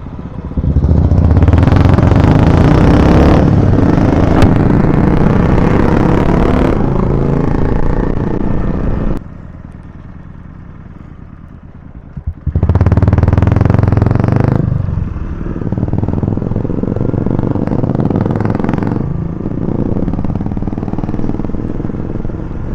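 Motorcycle engine running on the move with a loud rushing noise over it, dropping much quieter for about three seconds midway before picking up again.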